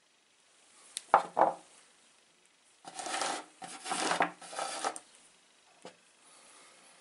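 Small dark stones clattering and scraping against one another and the wooden tabletop as a hand rummages through the pile, for about two seconds. Before that come two sharp knocks a little over a second in, and a single click comes near the end.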